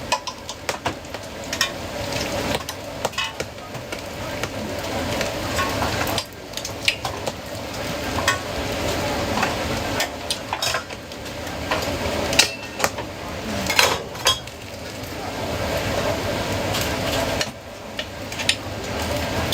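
Food stall kitchen work: metal utensils and dishes clatter and knock repeatedly over a steady sizzle of frying food.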